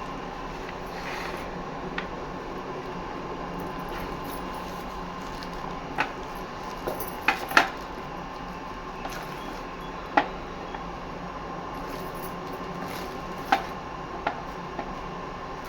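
Small hard items being handled: scattered light clicks and knocks, a few louder ones in the middle and later, over a steady background hum.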